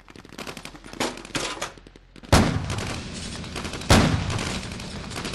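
Battle sound effects on an animatic soundtrack. Rattling gunfire for about two seconds, then two loud booms of gun blasts or shell bursts about a second and a half apart, over a steady rumble.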